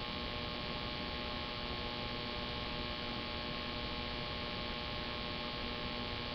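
Steady electrical hum with hiss, a few faint steady tones held throughout, with no other sound standing out.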